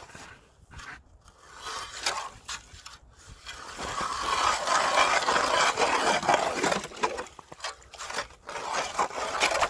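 Hand ice auger boring through lake ice: its blades grind and scrape as the handle is turned, growing louder about four seconds in and keeping on until near the end.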